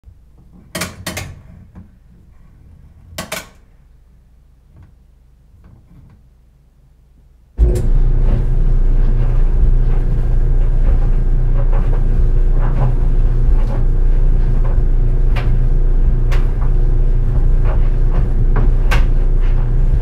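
A few clicks and knocks, then about seven and a half seconds in a GE Spacemaker DSKS333E laundry dryer starts up: a steady motor hum with a low rumble as the drum tumbles, and now and then a sharp tick from a jeans button or zipper scraping against the drum.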